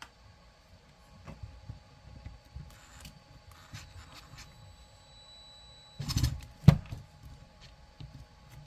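Small parts and a tool being handled on a workbench: light scrapes and clicks, then a louder clatter about six seconds in, ending in one sharp click.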